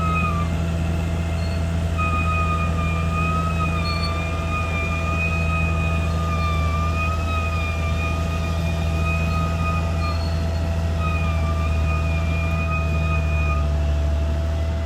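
CAT D6R XL bulldozer running steadily with a deep diesel drone. A high, wavering squeal rides over it, dropping out briefly near the start and stopping shortly before the end.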